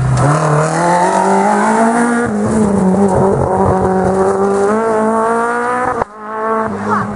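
Renault Clio rally car accelerating hard through and out of a tarmac hairpin at high revs, its engine note climbing for about two seconds, then holding high. About six seconds in the sound cuts off abruptly and another rally car's engine is heard running at high revs.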